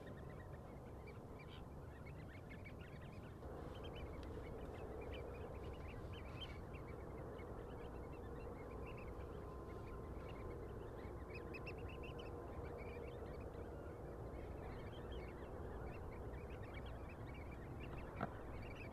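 A flock of oystercatchers and gulls calling: many short, high piping calls over a steady low background noise and a faint steady hum. A single short click sounds near the end.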